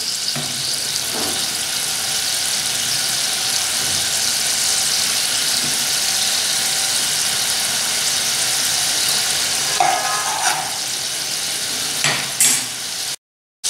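Oil and milk cream sizzling and bubbling steadily in an aluminium pot on a gas flame, with mustard seeds frying in it and a few louder crackles near the end as the seeds begin to splutter. The sound cuts out for about half a second just before the end.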